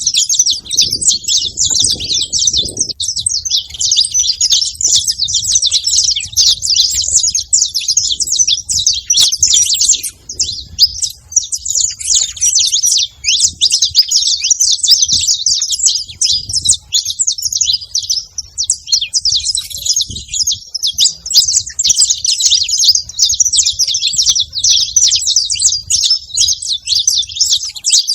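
Saffron finches chirping and twittering in a dense, almost unbroken stream of high notes, with only brief lulls.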